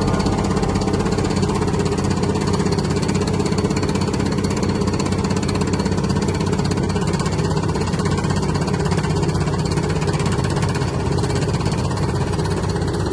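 Heavy diesel construction machinery running steadily under load, with a fast, even pulsing beat.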